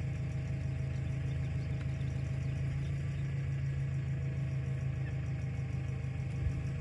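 Tractor engine running steadily while it drives a capstan skid winch hauling a log on a rope. A single low thump near the end.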